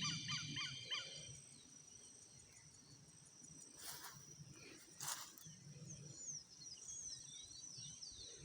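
Birds calling outdoors: a rapid run of falling chirps in the first second, then fainter scattered chirps near the end. Two short rushing noises come about four and five seconds in, over a faint steady high-pitched hum.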